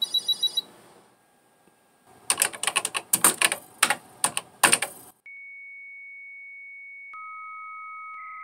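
Keys typed in quick bursts on an old computer keyboard, then a steady high modem tone begins. About two seconds later a lower second tone joins it: the answer and originate tones of a 300-baud modem connecting.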